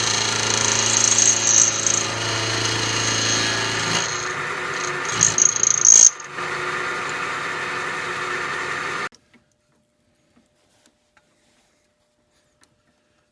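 Milling machine running and taking light cuts in a steel part, a steady machine hum with a cutting chatter. The sound is rougher and louder briefly about five to six seconds in, then cuts off suddenly about nine seconds in, leaving near silence.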